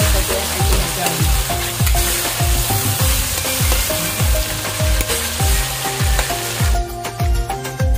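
Food sizzling and frying in hot oil in a pan while ingredients for homemade shrimp paste (bagoong) are sautéed, under background music with a steady beat of about two thumps a second. The sizzle cuts off about seven seconds in, leaving only the music.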